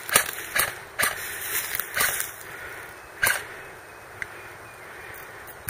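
Airsoft guns firing scattered single shots, sharp irregular snaps. They are most frequent in the first two seconds, with another a second later and a faint one after that, over a steady outdoor hiss.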